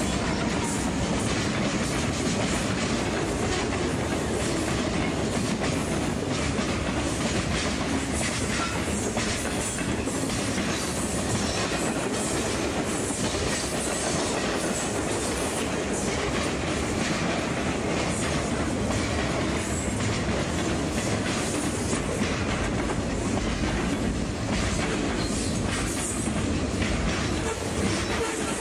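Freight train cars rolling fast past at close range: a steady rumble of steel wheels on rail, with frequent clicks from the wheels. The passing cars include lumber flatcars, tank cars and boxcars.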